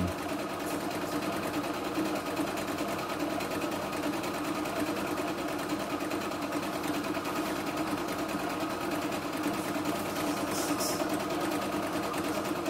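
CNY E960 computerized sewing and embroidery machine running steadily in sewing mode, stitching a straight seam through felt.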